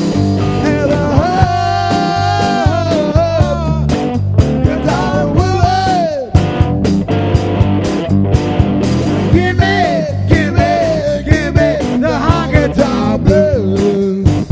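Live rock band playing an instrumental break: steady drums and bass under a lead melody with long held notes that bend and slide in pitch.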